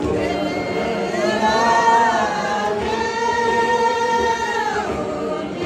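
A group of voices singing a Tibetan gorshey circle-dance song in long held notes that waver in pitch, breaking off about five seconds in.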